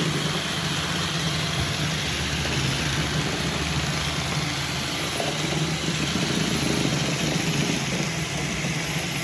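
Two iRobot Roomba robot vacuums, a 675 and a 645, running together: a steady whirring hum of their vacuum motors and brushes.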